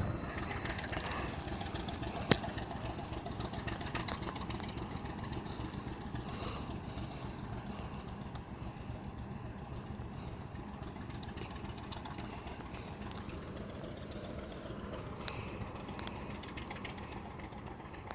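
Distant ChME3 diesel shunting locomotive's six-cylinder engine running steadily as it hauls a train, growing slightly fainter. A single sharp knock about two seconds in.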